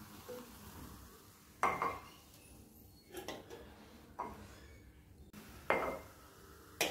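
Cola poured from a can into a glass tumbler with a soft fizz, then about five sharp clinks and knocks as glasses are handled and set down.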